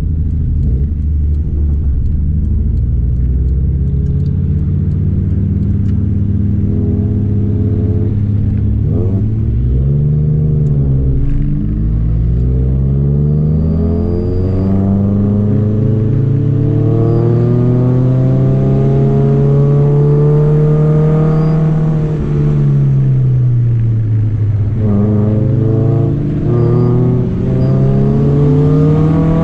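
Honda Civic Nouva's four-cylinder engine pulling uphill under load, heard from inside the cabin. The revs drop about eleven seconds in with a shift from first to second gear, climb steadily, dip briefly a little after twenty seconds, then rise again.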